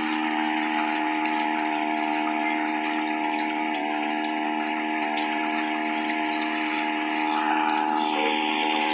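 A small boat's engine running at a steady speed, with a hiss of water and wind over it.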